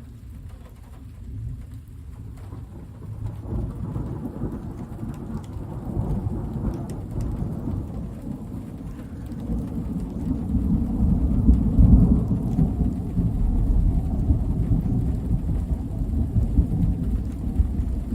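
Rolling thunder: a deep, long rumble that builds over several seconds, peaks about two-thirds of the way through and keeps rumbling to the end, with rain falling underneath.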